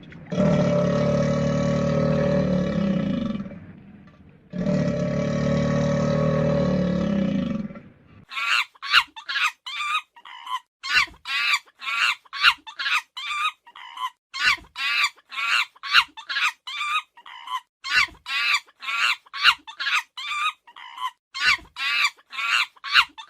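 Animal calls: two long, low calls of about three seconds each, then a fast run of short, high-pitched calls, about two a second.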